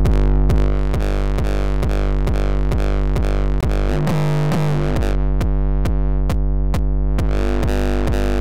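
A looped TR-909 kick drum pushed through heavy resonant distortion into a hardstyle/hardcore-style kick, hitting about three to four times a second. The distorted kick's tone shifts partway through as a filter band's frequency is swept lower.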